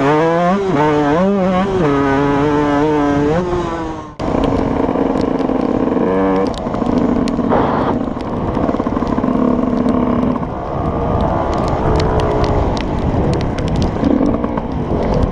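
Dirt bike engine running hard on a dirt trail, its pitch rising and falling with throttle and gear changes, heard from a camera on the moving bike. It is preceded by a short intro sound with a wavering pitch that cuts off about four seconds in.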